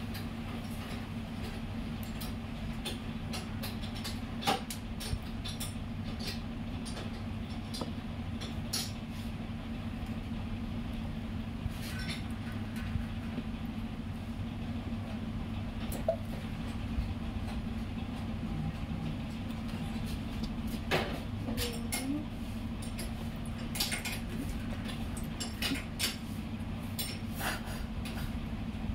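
Scattered light clicks and metal taps of tools and engine parts being handled during engine reassembly, over a steady low hum.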